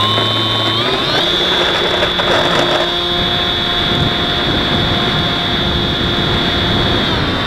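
Electric motor and propeller of a Bixler foam RC plane whining at high throttle during takeoff and climb. The pitch steps up about a second in, holds steady, then dips briefly and rises again near the end.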